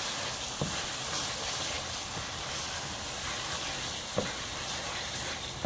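Thick berbere and onion sauce sizzling steadily in a pot as it is stirred with a wooden spoon. Two soft thuds of the spoon come about half a second in and again about four seconds in.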